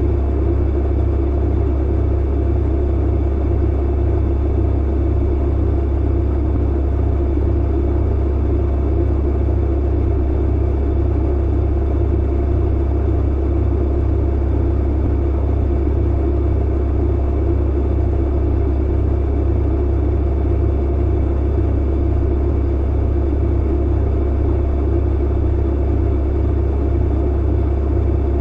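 Clothes dryer running: a steady low hum and rumble with no pauses or changes.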